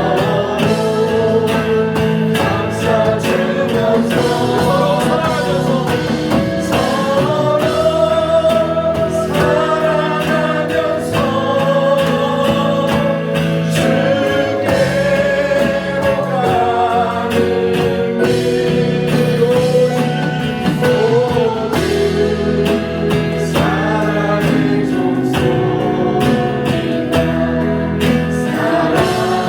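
Contemporary gospel worship song: a sung melody backed by voices over a band with steady bass and a regular beat.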